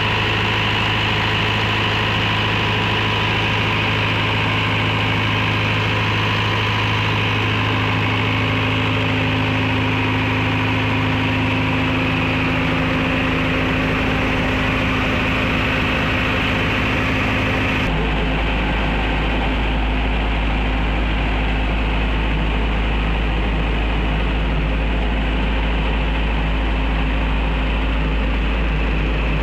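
A 62.5 kVA silent-canopy diesel generator set running steadily with an even engine hum. About two-thirds of the way in, the sound changes abruptly to a deeper, stronger low hum with less hiss on top.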